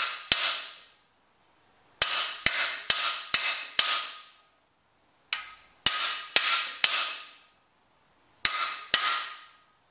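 Hammer blows on a cam bearing installer's driver bar, driving a new cam bearing into the cam bore of a Vortec 4.3 V6 block. Sharp metallic strikes about half a second apart, each with a short ring, come in four bursts of two to five blows with short pauses between.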